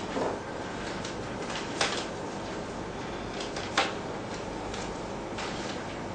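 A deck of tarot cards being shuffled by hand: soft shuffling with three louder card snaps about two seconds apart, over a steady hiss.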